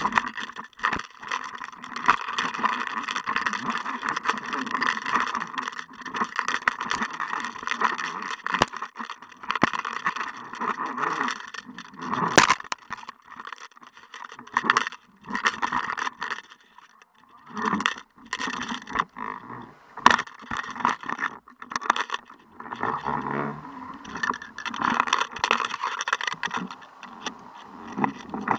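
Underwater camera housing and jig rig rattling, scraping and knocking as the rig is jerked and tugged on the fishing line at depth, in irregular clicks over a steady hiss, with one sharp knock about twelve seconds in.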